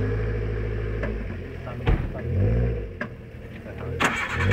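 Suzuki Jimny's engine running at low revs as it crawls over rough ground, its pitch rising and falling a little. There is a sharp knock about two seconds in and a clatter of knocks near the end.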